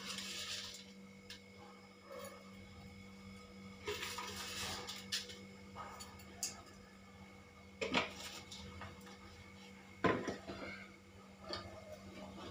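Metal spoon stirring and scraping in a steel cooking pot, with two sharp clanks of the spoon against the pot, about 8 and 10 seconds in.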